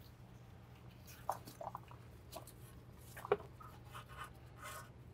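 Faint rubbing and scratching with a few small clicks as gloved hands handle the brake pad wear sensor wire and its plastic fittings; one sharper click comes a little past three seconds in.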